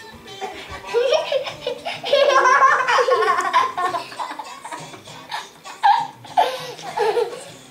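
A little girl laughing in repeated bursts of giggles, with music playing underneath.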